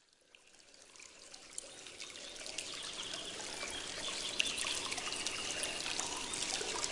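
Trickling water, fading in gradually from silence and growing steadily louder.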